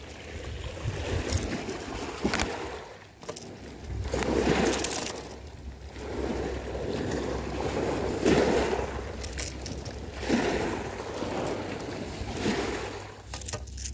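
Rumbling buffets and scratchy rubbing on a body-worn camera's microphone, over small waves washing on a pebble beach.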